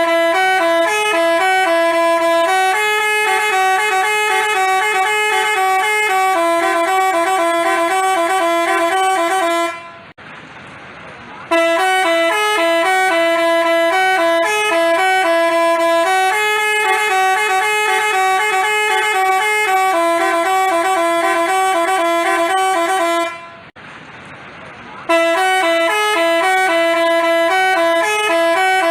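Basuri telolet multi-tone horn playing its stepped, repeating melody of quick alternating notes. It breaks off twice, for a second or two each time, leaving only a hiss before the tune starts again.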